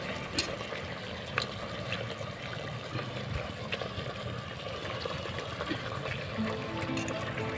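Meat pieces simmering in a steaming pot of water, with bubbling and a few sharp clicks of the stirring utensil against the metal pot. Faint music comes in near the end.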